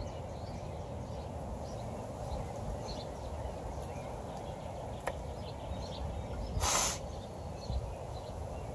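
A knife blade of A2 tool steel shaving a curl off a dry stick: one short scrape about seven seconds in, with a sharp click a couple of seconds before it. Steady wind rumble on the microphone runs underneath.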